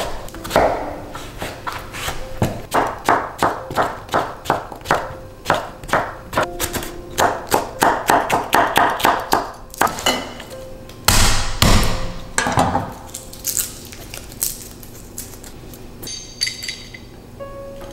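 Chef's knife chopping vegetables on a thick wooden cutting board: a steady run of sharp knocks about three a second, then two heavier thuds past the middle. Soft background music runs underneath.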